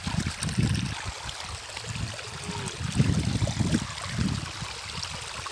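Shallow water trickling and running over mud and stones, with irregular low rumbling swells, the strongest about three seconds in.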